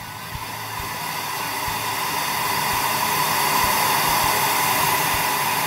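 Pink noise test signal played through the car's factory stereo, an even hiss that swells louder as the volume is turned up and then drops away near the end. It is the test signal for checking whether the factory radio's frequency curve changes with volume.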